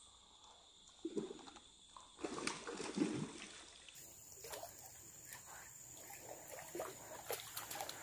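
River water splashing and sloshing as a hooked hampala thrashes near the surface, in uneven surges, followed by scattered sharp clicks and knocks from the rod and spinning reel being worked.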